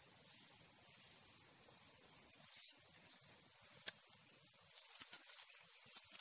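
Steady high-pitched insect chorus, an unbroken drone, with a couple of faint ticks about three and four seconds in.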